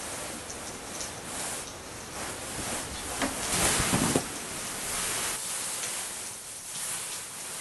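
Bedding rustling as a duvet is pulled and shifted, loudest in a burst about three to four seconds in, over a steady hiss.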